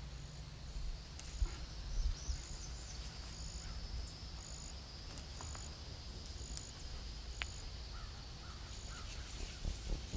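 Woodland ambience: a steady low rumble with a high, short chirp repeating a little more than once a second, a couple of soft thumps in the first two seconds, and a short run of calls near the end.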